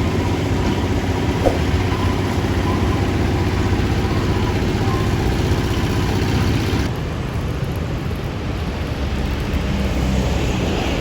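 Diesel engines of road-paving machinery running steadily. The sound changes abruptly about seven seconds in, the higher hiss dropping away.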